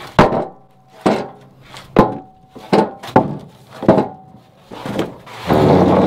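2x6 wooden boards knocking and clattering as they are turned over by hand on a sawmill's steel bed: about seven sharp thunks, then a rough sliding, scraping noise near the end.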